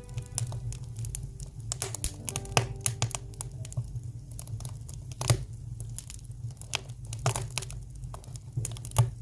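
Oak firewood burning in a wood stove, crackling with irregular sharp pops, the loudest about five seconds in and near the end.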